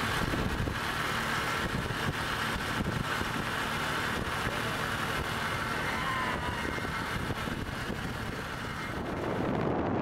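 Motorcycle riding along a paved road, its engine running steadily under heavy wind and tyre noise on the microphone.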